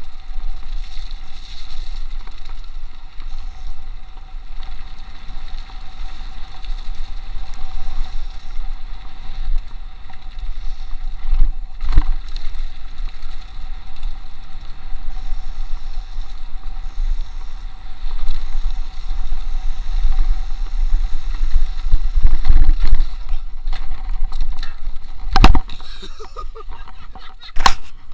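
Mountain bike descending a rough dirt trail, heard from a chest-mounted action camera: continuous rumble and rattle from the trail with wind on the microphone, broken by a few sharp knocks from bumps, the loudest near the end.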